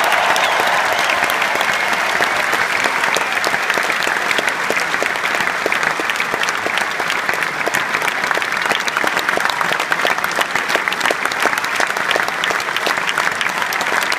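Large stadium crowd applauding in a long, sustained ovation: dense, steady clapping, with individual claps close at hand standing out against the mass.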